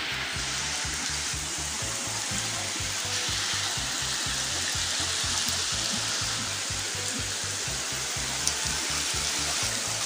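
Spring water running, a steady even rushing hiss, with background music faintly underneath.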